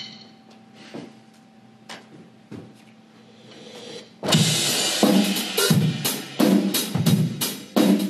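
Acoustic drum kit: a few soft ticks about a second apart, then about four seconds in the full kit comes in loud, with bass drum, snare and cymbals in a steady beat.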